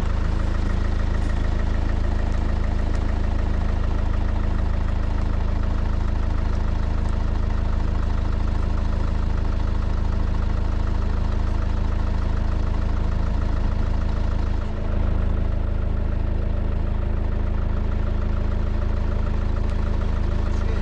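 A vehicle engine running steadily with a loud low drone, with a brief dip in level about fifteen seconds in.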